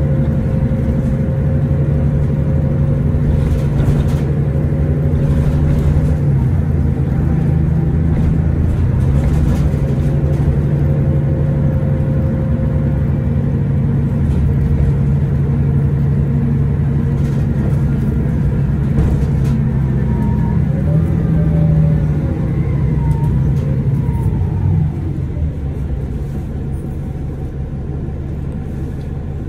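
Cummins ISL9 diesel engine of a 2011 Orion VII 3G transit bus running under way, its engine note rising and falling as the bus drives, then easing off about 25 seconds in.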